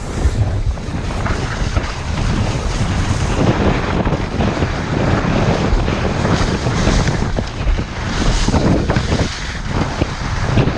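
Loud, steady wind buffeting the microphone, beginning abruptly.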